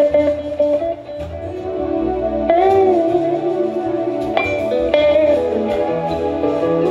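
Live band music in an instrumental passage without singing: a guitar leads with sustained, bending notes over a bass line.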